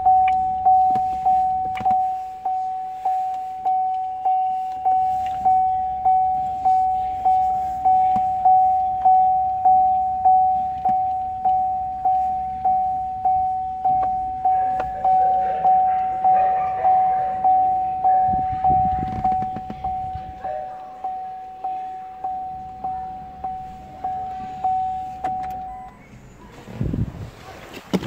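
A Chevrolet Volt's interior warning chime dinging over and over at one pitch, about three dings every two seconds, stopping shortly before the end. Handling rustles come in the second half, with a thump near the end.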